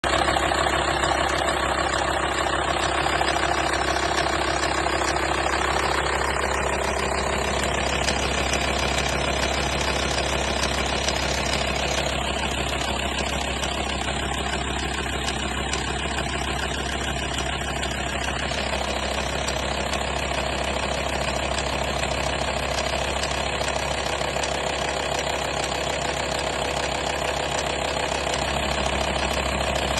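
Volkswagen T5's 2.5 TDI AXD five-cylinder diesel engine running steadily at idle with a chain-like rattle, the noise the owner is trying to trace.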